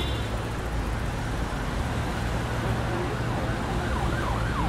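Road traffic noise with a steady low engine rumble. Near the end an emergency-vehicle siren starts up, its pitch rising and falling quickly, about three times a second.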